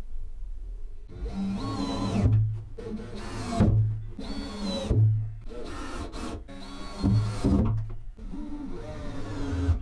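Cordless drill driving screws into wood in several short bursts, fixing a batten to a plywood hull with temporary clamping screws. Background music plays under it.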